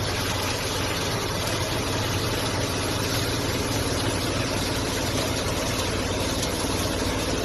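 Harvesting machine's engine running steadily, with a dense, even mechanical noise over it and no change in pitch.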